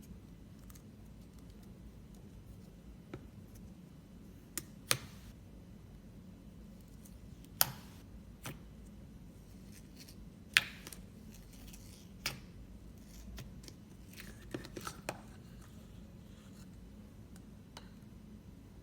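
Slime being handled, giving about ten sharp, sticky clicks and pops at irregular intervals over a low steady hum.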